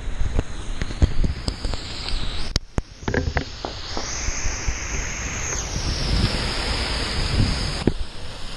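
A GoPro camera being handled: fingers rub and knock against its housing, with a couple of sharp clicks shortly before three seconds in, over a steady rushing hiss.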